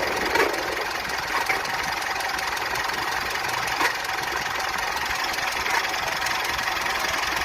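Vehicle engine running steadily with an abnormal mechanical noise and a few sharp knocks at irregular intervals: a bad sound from the engine, the sign of some fault.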